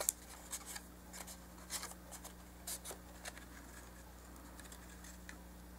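Printed paper being folded and handled: a scatter of soft rustles and small taps over the first three seconds or so, then only a faint steady hum.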